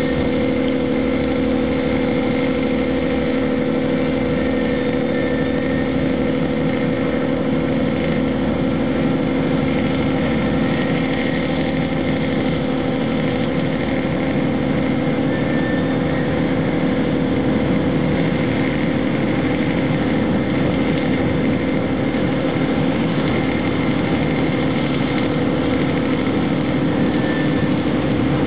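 An engine running steadily at constant speed: an even, deep drone that holds the same pitch and level throughout.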